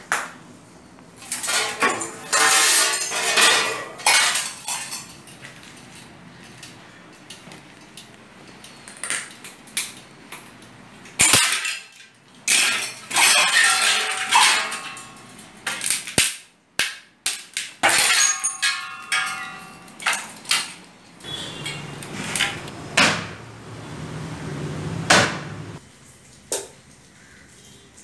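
Metal ceiling fans being knocked about and broken on a hard floor among shattered glass: repeated clattering crashes, scraping and clinking of metal and glass, with a metal part ringing briefly partway through and a low rumble near the end.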